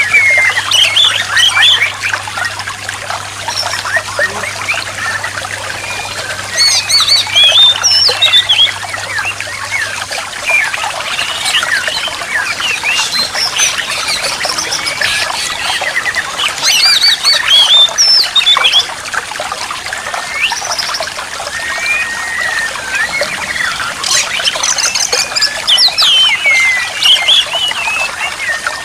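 Oriental magpie-robin (kacer) song played as therapy for a kacer that has stopped singing: phrases of varied whistles and harsher notes come in bouts every few seconds. Trickling water runs steadily underneath.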